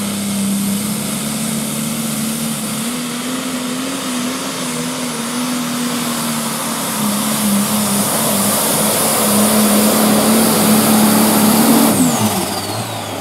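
A John Deere super stock pulling tractor's engine running flat out under the load of the sled: a steady, loud engine note with a high whine above it, getting louder through the last few seconds. About twelve seconds in, the engine note and the whine fall away sharply as the throttle is cut at the end of the pull.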